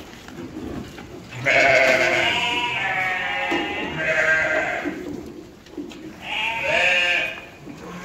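Goats bleating: three long, wavering calls, one about a second and a half in, one around the middle and one near the end.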